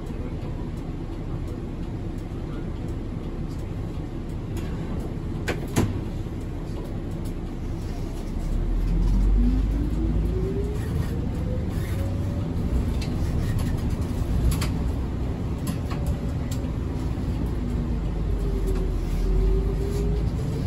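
City bus engine and drivetrain running, heard from inside the cabin. About eight seconds in it gets louder and a whine rises in pitch over a few seconds as the bus accelerates; near the end the whine dips and climbs again. A single sharp click comes a little before the middle.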